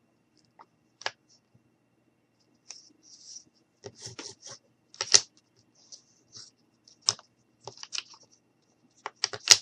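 Irregular light clicks, taps and scratches of wooden popsicle sticks being handled and pressed together on a tabletop, with a quick run of clicks near the end.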